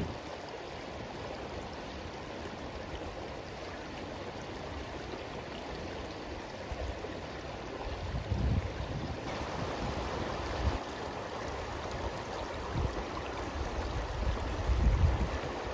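River water flowing steadily, with low gusts of wind rumbling on the microphone from about halfway through, stronger near the end.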